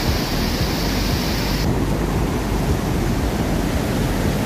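Steady roar of a large whitewater rapid and waterfall pouring over rock ledges. The rush changes character abruptly about a second and a half in.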